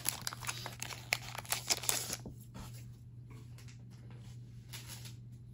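Foil booster-pack wrapper being pulled open and handled: a dense run of crackles for about two seconds, then only a few faint ticks of cards being handled.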